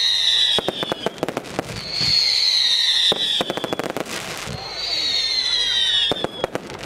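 Fireworks firing in a rapid volley: sharp bangs and crackles, with three or four high whistles that each last about a second and drift slightly down in pitch.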